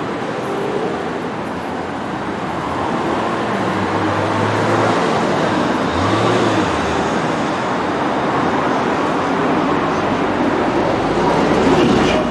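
Steady street traffic noise from passing road vehicles, with the low engine hum of a vehicle going by a few seconds in.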